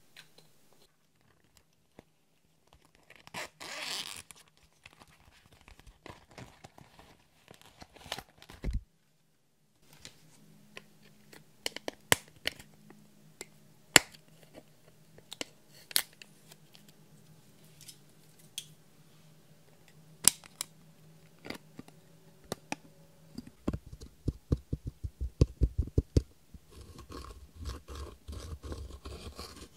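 A plastic eyeshadow palette being handled, with sharp scattered clicks and taps. Towards the end, a thin tool rapidly taps and then scrapes at the pressed eyeshadow in its pans, crushing the powder. A brief crackling rustle comes a few seconds in.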